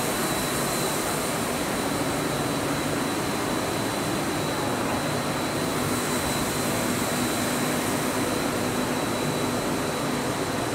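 Corrugated pipe extrusion line machinery running steadily: a continuous even machine noise with a thin, steady high whine over it.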